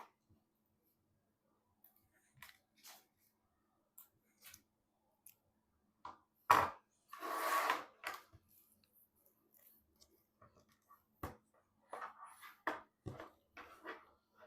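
Scattered clicks and plastic handling noises from PC parts being fitted by hand, with a sharp snap about six and a half seconds in and a short rasp just after it.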